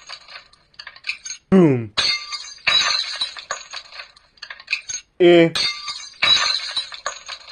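Glass breaking and clinking: several separate shattering crashes in a row. A voice says a falling "boom" about one and a half seconds in.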